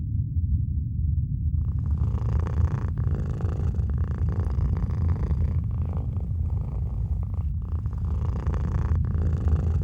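A low, steady rumbling drone with a throbbing texture, joined about a second and a half in by a hissing layer over it.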